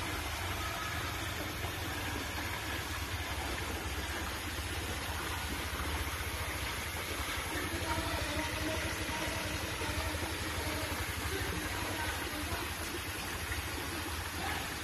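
Steady motor hum with rushing, churning water: a swimming pool's pump and jacuzzi jets running.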